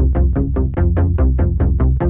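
Synthesizer music with rapid repeated pitched notes, about six a second, over a steady bass drone.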